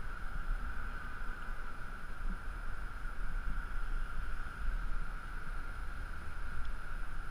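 Wind buffeting the microphone of a body-mounted action camera high on a building face: a low, uneven rumble over a steady faint high-pitched tone.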